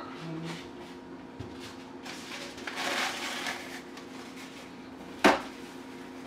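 A paper towel rustles as it is unfolded and laid on a glass stovetop, then a sharp slap about five seconds in as a hand presses it flat, over a steady low hum.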